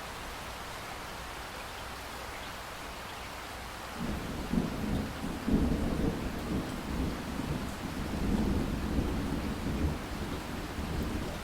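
Steady rain hiss, then about four seconds in a long low rumble of thunder starts, loudest a second or so later, and keeps rumbling in swells over the rain.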